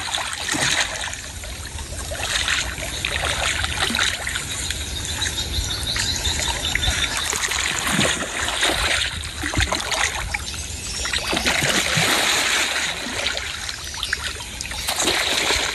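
A large fish thrashing in shallow water at a riverbank, with irregular splashing and churning water that surges and eases.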